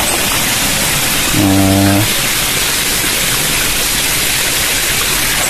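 Steady rushing water of a river and waterfall, a loud even hiss. About a second and a half in, a short steady hum lasts about half a second.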